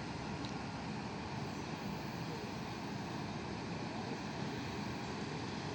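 Steady rumble of an ED4M electric multiple-unit train, even and unbroken, with no distinct wheel-joint clatter.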